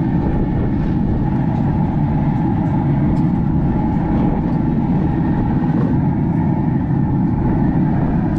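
Wind buffeting the microphone: a steady, loud low rumble.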